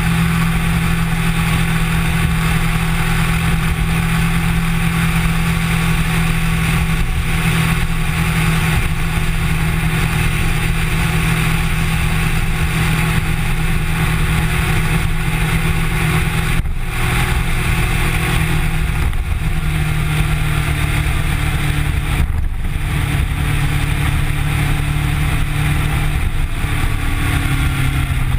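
Kawasaki Ninja sportbike engine running at a steady cruise, heard over heavy wind rumble on a bike-mounted camera's microphone. The engine note breaks off briefly twice past the middle, then shifts pitch slightly.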